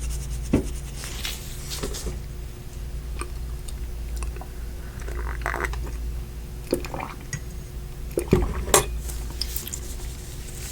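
Close-miked eating of ice cream: wet, squishy mouth sounds with a few sharp clicks of the spoon and container, over a steady low hum.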